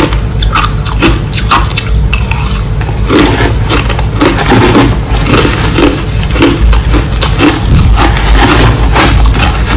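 Crushed ice being chewed close to the microphone: a loud, dense crunching and crackling that settles into a steady chewing rhythm of about two to three crunches a second.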